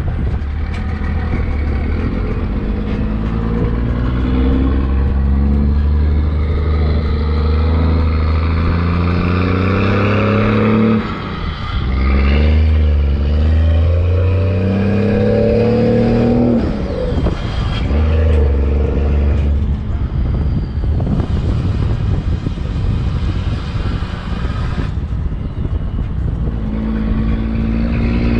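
1996 Cummins 5.9 12-valve six-cylinder diesel, fuelled on waste motor oil, pulling a heavy trailer and accelerating through the gears. Engine pitch climbs steadily and drops at each shift, with several gear changes along the way.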